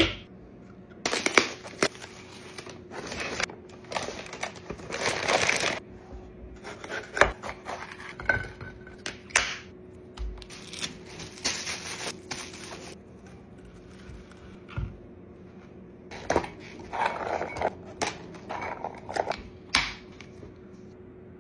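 Kitchen food-prep handling: sharp clicks and knocks of glass storage containers and their snap-lock lids on a wooden cutting board, with spells of crisp rustling and crunching from handling fresh vegetables. A faint steady hum runs underneath.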